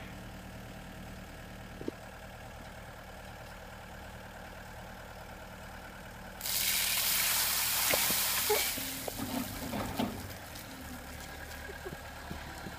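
Skid steer engine idling, then about six seconds in a sudden loud rush of water poured from the bucket, lasting about two seconds, dying away into splashing and spatters before the idle carries on alone.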